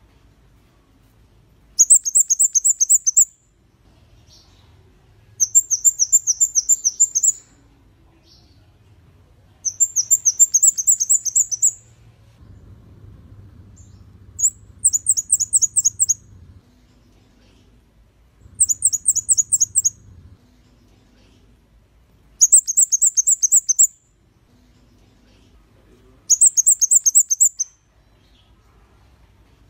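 Kemade kepala merah (a red-headed flowerpecker) singing: seven phrases about every four seconds, each a fast run of very high repeated notes lasting a second and a half to two seconds.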